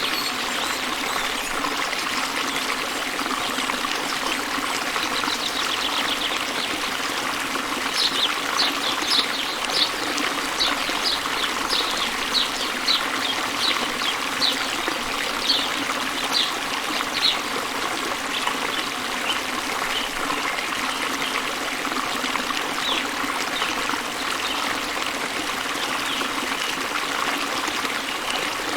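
Waterfall's water falling steadily, with a bird chirping over it: a run of short, high chirps about two a second starting about a quarter of the way in and trailing off past the middle.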